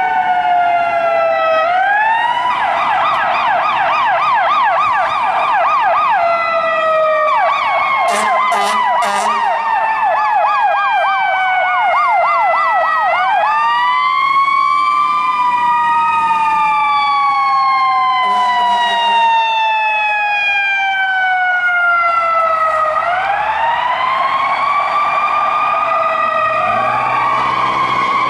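Fire engine's electronic siren sounding, switching between a slow rising-and-falling wail and a fast yelp several times.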